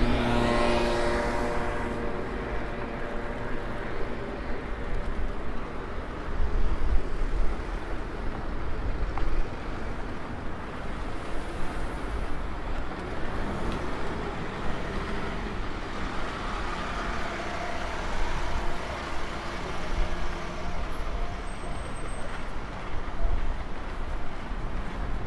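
City street traffic: cars passing with a steady road noise and low rumbles as vehicles go by. A motor scooter's engine passes close in the first couple of seconds.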